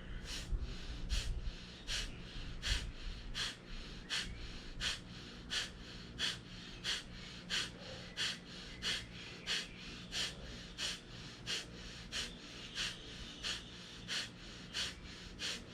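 A person doing Kapalbhati breathing: a steady series of about 25 short, forceful exhalations through the nose, about three every two seconds, each a sharp puff with the inhalation passive in between.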